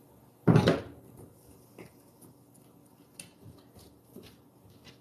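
A short, loud clunk about half a second in, followed by a few faint clicks and taps of tools or parts being handled.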